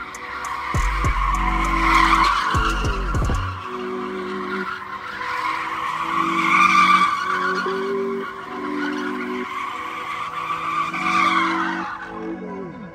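Car tyres squealing continuously as a sedan spins donuts in a smoky burnout, the squeal swelling and fading several times. A pulsing low beat runs underneath.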